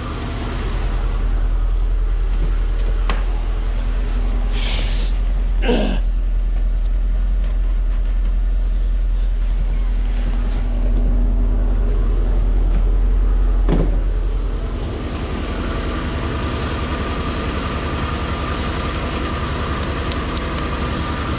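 Car engine idling: a steady low rumble with a faint hum, easing a little about two-thirds of the way through, with a couple of brief whooshing glides.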